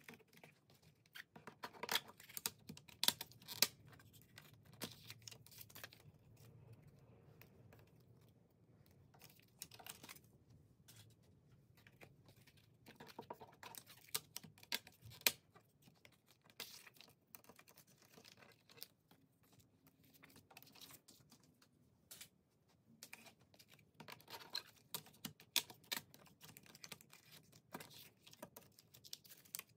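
Clear plastic CD jewel cases clicking and clattering as they are handled and opened, in several flurries of sharp clicks, with the paper booklet and inserts shuffled inside.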